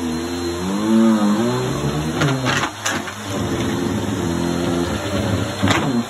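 Bissell PowerForce Helix upright vacuum cleaner running on a rug, its motor pitch wavering up and down as the head is pushed back and forth. Crunchy debris crackles up through it a couple of seconds in and again near the end.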